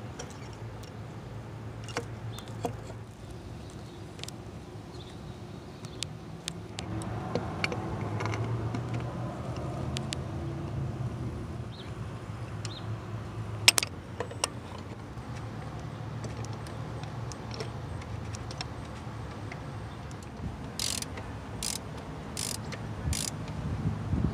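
Ratchet and socket on a long extension tightening the thermostat housing bolts, with scattered sharp clicks of the ratchet and tool on metal. A quick run of sharp clicks comes near the end as the bolts are brought up to torque.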